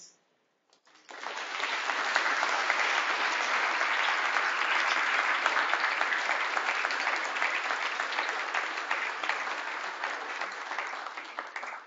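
Audience applauding: a dense, steady clapping that starts about a second in and tapers off near the end.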